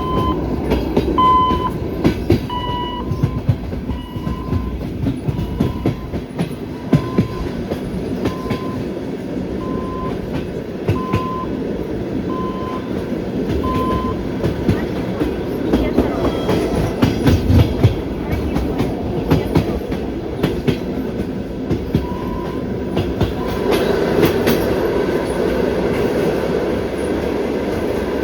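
Passenger train's wheels clattering over rail joints under a steady running rumble, heard from aboard the moving train. A short electronic beep repeats about every second and a half through the first half, then stops.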